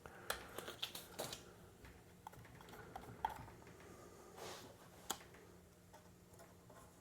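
Faint scattered clicks and a brief soft scrape as vinyl film is trimmed and handled by hand.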